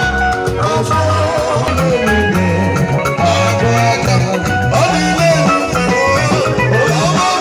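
Live gospel band music played loud through loudspeakers, with a moving bass line under guitar and a man singing into a microphone.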